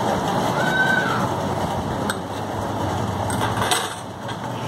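Pencil drawing on paper, with a sharp click about two seconds in and a brief rustle and knock near the end as the paper drawing book is picked up and moved. A steady background rumble runs underneath.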